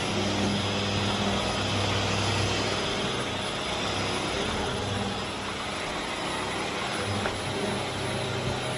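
Vax Air Steerable Max upright vacuum cleaner running steadily: a low motor hum under a rushing of air.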